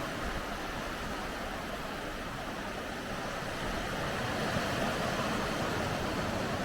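Steady wash of sea surf on a sandy beach, with a low, uneven rumble of wind on the microphone; it grows a little louder about four seconds in.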